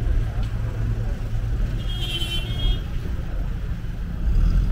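A motor vehicle's engine running close by, a steady low rumble on a busy street, with a brief high-pitched sound about two seconds in.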